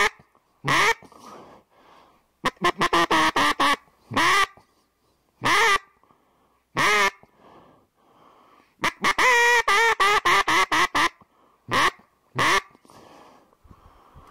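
Duck quacking: loud single quacks, then a fast run of short quacks, then a longer rapid run and two more single quacks near the end.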